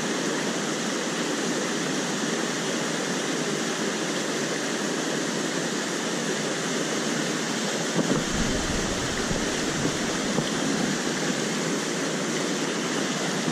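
Mountain stream rushing steadily over rocks and small cascades. From about eight seconds in, a low rumble with a few knocks comes in underneath.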